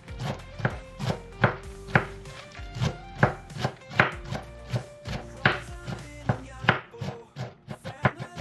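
Kitchen knife chopping leafy greens on a bamboo cutting board: a regular run of sharp knocks of the blade on the board, about two to three a second. Background music plays under it.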